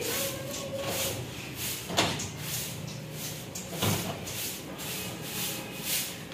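Soft grass broom sweeping a concrete floor in brisk scratchy strokes, about two to three a second, with two sharper knocks about two and four seconds in.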